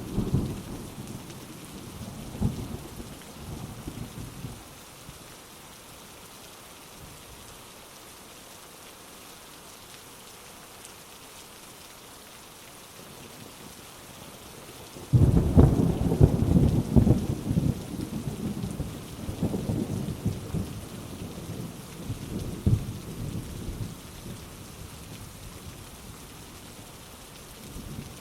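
Heavy rain falling steadily with thunder. A rumble dies away in the first few seconds, then a sudden loud thunderclap about halfway through rolls on for several seconds before fading back to the rain.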